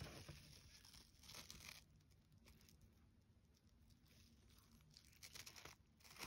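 Faint rustling and crinkling of fabric in a toy doll's pram, in several short bursts, the last near the end as the hood is lifted.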